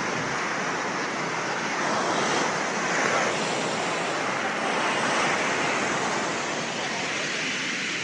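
Surf breaking and washing up on a sandy beach, a steady rush that swells slightly a few seconds in and again midway.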